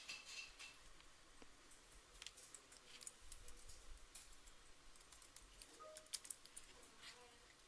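Faint computer keyboard typing: irregular, closely spaced keystroke clicks.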